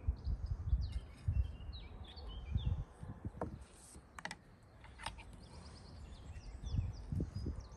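Small birds chirping repeatedly in short calls, over irregular low thumps and rumbles, the thumps loudest in the first second and a half and again near the end, with a few sharp clicks.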